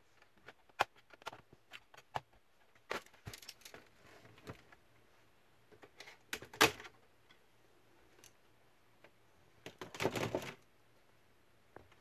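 Plastic snap clips of a Dell Inspiron 3521 laptop's palmrest popping loose as the case is pried apart with a plastic pry tool. Scattered sharp clicks and cracks, the loudest about six and a half seconds in, with a rattling cluster of clicks around ten seconds.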